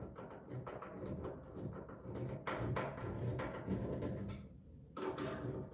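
Irregular metallic clicks, knocks and scraping from a tailgate handle and latch assembly being fitted and worked on a 1978 Chevrolet C10 tailgate, busiest in the middle and again near the end.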